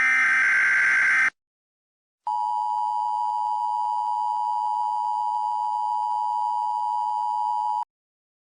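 Emergency Alert System tones: a burst of the SAME digital header, about a second long, then a short gap, then the EAS two-tone attention signal, a steady dual tone of about 853 and 960 Hz held for about five and a half seconds before it cuts off abruptly.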